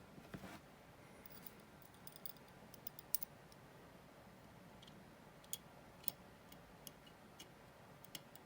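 Faint, irregular small clicks and taps of watchmaker's metal tools handling the small parts of a mechanical watch, with a brief soft scrape just after the start.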